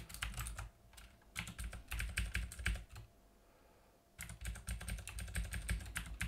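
Computer keyboard typing in three quick runs of keystrokes, with short pauses between them.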